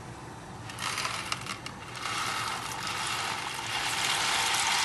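Dry macaroni poured from a cardboard box into a saucepan of boiling water. It starts about a second in with a clatter of pieces, then becomes a steady rattling rush that grows a little louder.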